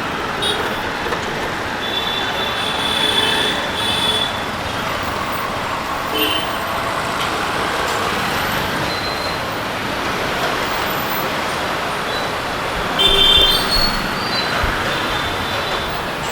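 Steady street traffic noise with vehicle horns sounding in short toots several times; the loudest horn comes about thirteen seconds in.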